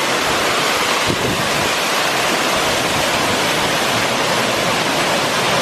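Waterfall in full flow, swollen by a heavy storm, sending up a steady loud rush of falling water.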